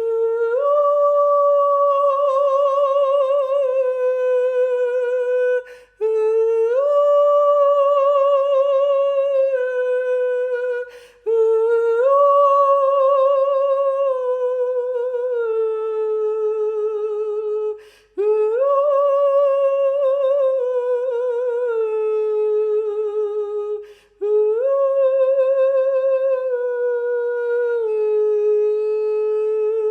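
A single unaccompanied voice singing wordless, sustained tones with vibrato. Each long phrase slides up at its start and drifts slowly down, with a short breath between phrases about every five to six seconds.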